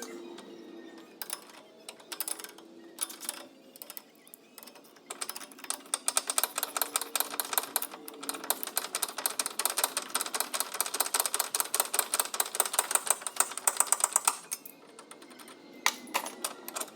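Hand ratchet clicking as it is worked on a suspension fastener: a few scattered clicks at first, then rapid, even ratcheting for about nine seconds that stops abruptly, with a couple more clicks near the end.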